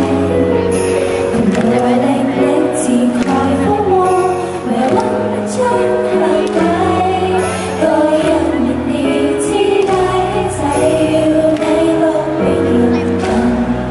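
Girl idol group singing a pop song live into microphones, several voices together, over instrumental accompaniment with a steady bass line.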